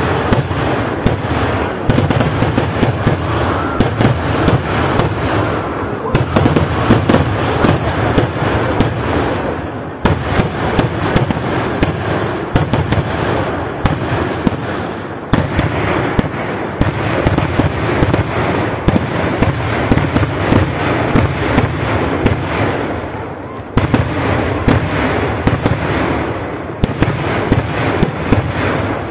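Kerala vedikettu fireworks going off in a dense, near-continuous barrage of cracks and booms, with a few short dips where the firing slackens.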